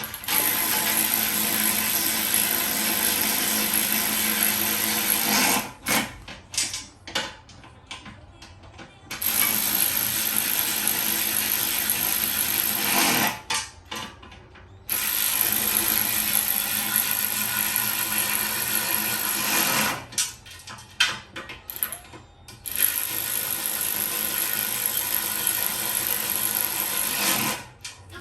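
A power tool running on the three-piece wheel's assembly bolts in four long runs of about four to five seconds each, with short stop-start blips between them.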